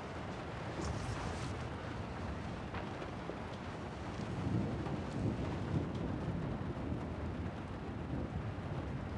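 Steady low rumbling noise with a hiss over it, swelling slightly about halfway through, with a few faint ticks.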